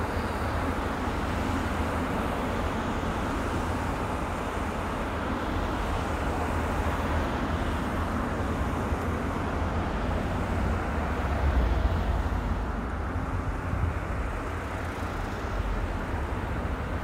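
A procession of police vehicles driving slowly past one after another: a steady low rumble of engines and tyres on the road, swelling a little about twelve seconds in.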